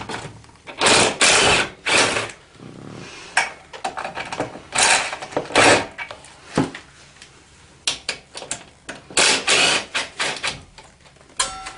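10 mm hand ratchet clicking in a run of short bursts as screws are backed out.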